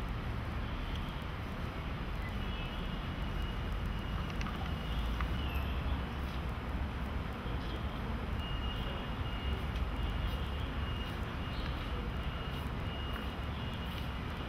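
Steady low background rumble of an outdoor city setting, with a faint thin high tone that comes in twice for a few seconds each time.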